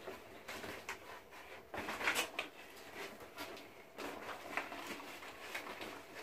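A large plastic carrier bag being handled and packed: irregular rustling with a few light knocks, loudest about two seconds in.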